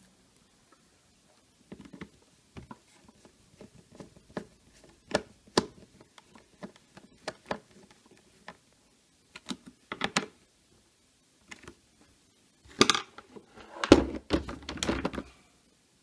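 Small screwdriver turning a screw into a coffee maker's plastic switch cover: scattered light clicks and ticks of the tool against the screw and housing. Near the end comes a louder run of knocks and plastic handling rattle.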